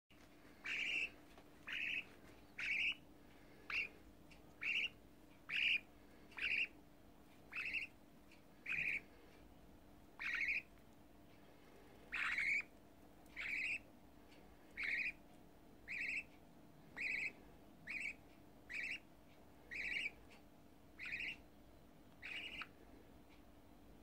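Budgerigar nestling calling over and over: a short, harsh call about once a second.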